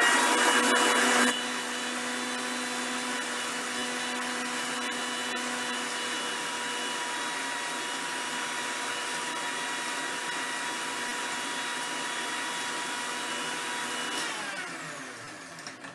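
Electric mixer grinder blending a yogurt, banana and ice smoothie in its jar, running continuously. It is loudest for about the first second, then runs at a steady hum and winds down with falling pitch near the end as it is switched off.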